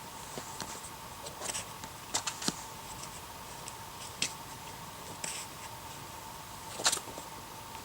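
Irregular sharp taps and short scuffs, a climber's hands and rubber shoes on a sandstone boulder, the loudest near the end, over a faint steady high hum.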